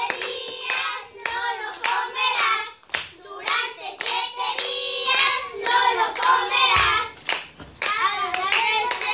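Group of children singing a song together, with hand claps among the singing.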